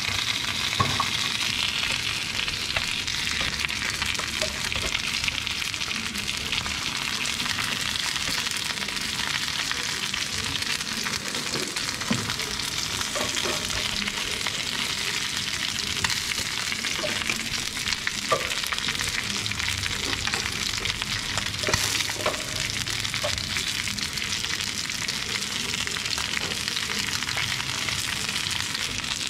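Fish steaks frying in a shallow layer of hot oil in a pan, a steady sizzle. A few light clicks come through it as wooden chopsticks turn the pieces against the pan.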